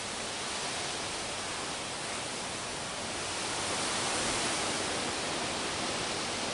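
A steady, even hiss of background noise, swelling slightly around the middle, with no distinct events.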